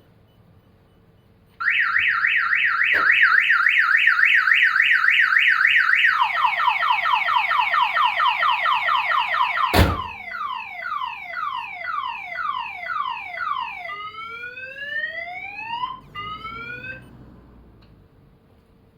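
Viper 3706V car security system's siren going off and stepping through its tones: a fast high warble, then a lower rapid warble, then a run of falling chirps, then a few rising sweeps before it cuts off. A sharp knock comes about halfway through, as the tones change.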